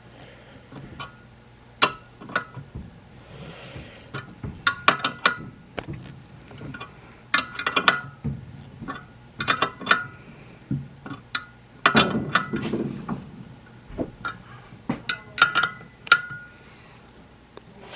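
Scattered metal clinks and taps, some ringing briefly, from a valve spring compressor tool being worked on an LS V8 cylinder head.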